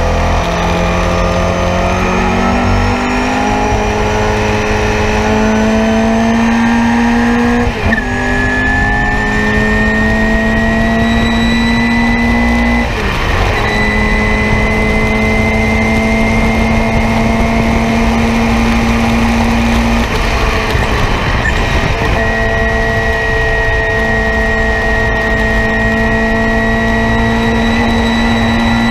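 Nissan Sentra race car's four-cylinder engine heard from inside the cockpit under hard acceleration. The note climbs in pitch, with quick upshifts about eight and thirteen seconds in, then holds nearly steady at high speed, with a brief lift a little after twenty seconds.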